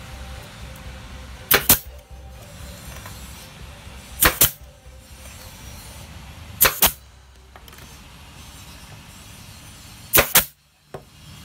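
Porter-Cable pneumatic brad nailer firing four times, driving nails into oak boards, each shot a sharp double crack a few seconds apart.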